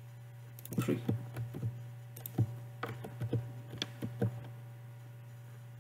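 Computer keyboard typing: a quick run of about a dozen keystrokes, a word typed and then a pause, over a steady low electrical hum.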